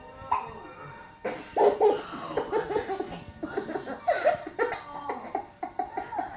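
A young child laughing hard in a long run of short, high-pitched bursts, starting about a second in.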